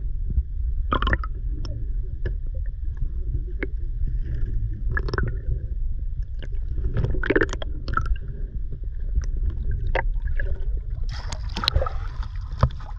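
Muffled underwater rumble and gurgling of water around a submerged camera, with scattered short clicks and knocks and a few brief splashy bursts.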